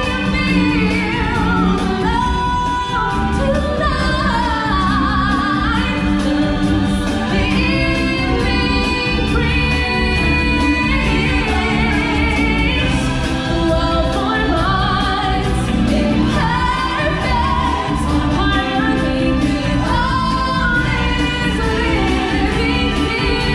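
Live stage-show music: a choir and lead singers over a steady, heavy bass backing track, continuing throughout.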